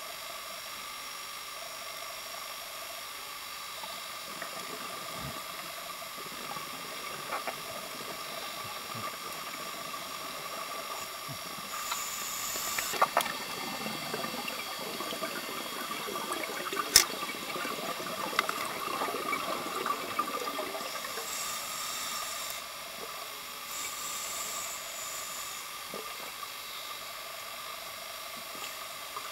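Scuba regulator breathing heard underwater: a short hiss of an inhalation, then a long gurgling, crackling stream of exhaled bubbles about halfway through, with a sharp click in the middle of it. Two more short inhalation hisses follow. A steady hiss with a faint whine runs underneath.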